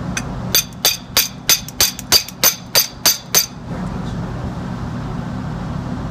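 About ten sharp, ringing metal strikes, roughly three a second, stopping about three and a half seconds in: a tool tapping the valve plate of a big Copeland semi-hermetic compressor to knock it loose after the head has come off.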